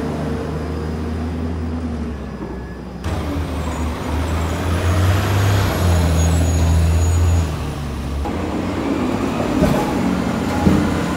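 City transit buses' engines running as the buses pull away and drive past, a low steady drone that shifts pitch a few times, in three short clips cut together. A short sharp knock comes near the end.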